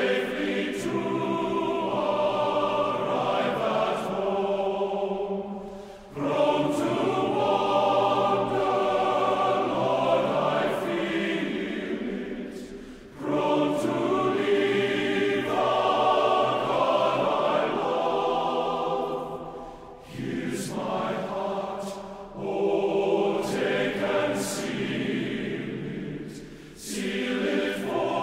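Background choral music: a choir singing slow, held phrases, with a brief pause about every seven seconds.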